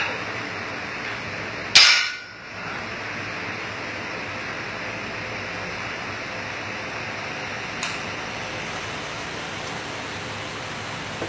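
A dumbbell, just finished with for an overhead French press, is put down on the gym floor mat with one loud sharp impact a couple of seconds in. A steady hiss runs underneath, with a faint click later.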